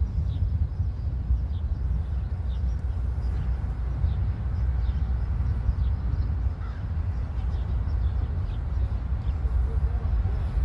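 Wind buffeting the microphone in a steady low rumble, with a bird repeating short, high, downward chirps every second or so.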